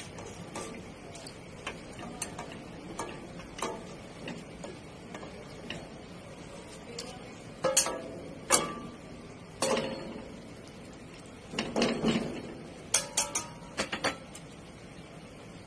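Metal spoon clinking and knocking against a small stainless-steel bowl as skimmed fat and scum from boiling pork are tapped off it. Light, scattered clinks at first, then several louder ringing knocks in the second half.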